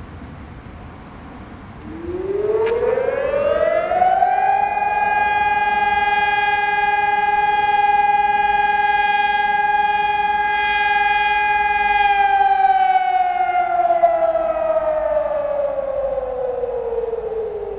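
Civil-defence warning siren sounding the test-alarm signal: about two seconds in it winds up in pitch, holds one steady tone for about eight seconds, then glides slowly down.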